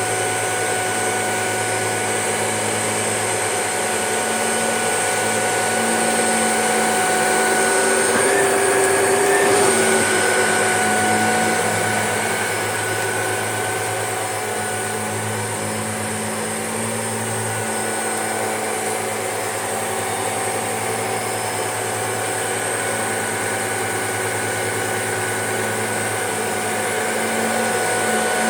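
Shark DuoClean vacuum cleaner running as it is pushed over a carpet, a steady motor hum that gets louder and shifts in pitch for a moment about eight to ten seconds in.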